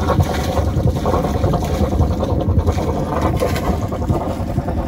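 Yanmar 2GM20F two-cylinder marine diesel running, its wet exhaust splashing cooling water out at the hull over a steady low rumble: the raw-water pump is pumping well on its new impeller.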